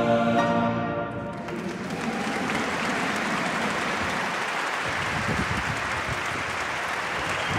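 A choir with orchestra holds a final chord that stops about a second and a half in, then an audience applauds steadily.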